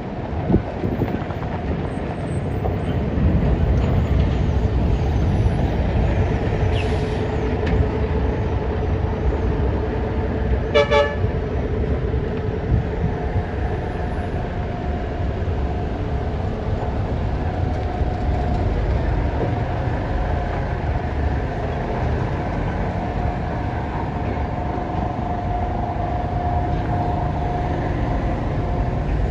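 Traffic and road noise from a moving vehicle: a steady low rumble, with one short vehicle horn toot about eleven seconds in.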